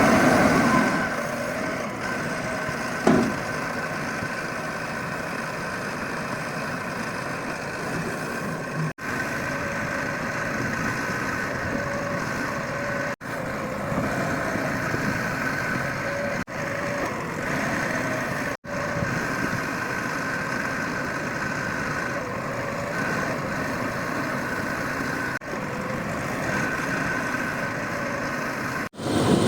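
Yanmar diesel engine of a mini backhoe loader running steadily, with a short knock about three seconds in. The sound breaks off sharply several times, at cuts between clips.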